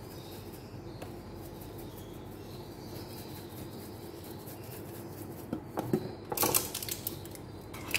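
Steady low background hum, then from about five and a half seconds in a burst of clicks and a short rattle as a spice jar is handled and shaken, sprinkling dried herbs.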